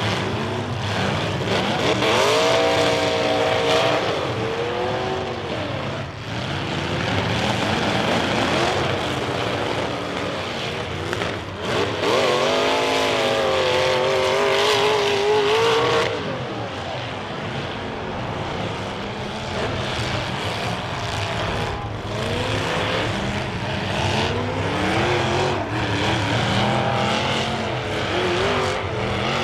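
Several demolition derby cars' engines running and revving hard, their pitch repeatedly rising and falling as the drivers accelerate and back off, over a steady din of engine and tyre noise.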